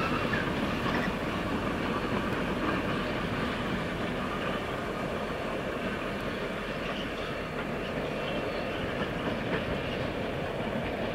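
Three diesel locomotives, a 48 class and an 82 class among them, running light engine past: a steady mix of engine and wheel-on-rail noise that eases slightly in the second half.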